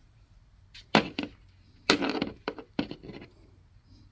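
Small hard parts clicking and knocking as they are handled: a sharp knock about a second in, a louder rattling clatter around two seconds, then a few lighter clicks.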